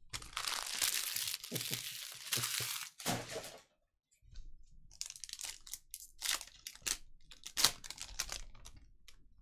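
Foil trading-card pack wrapper crinkling as it is handled, then torn open. There is a short pause about four seconds in, then a run of sharp crackles.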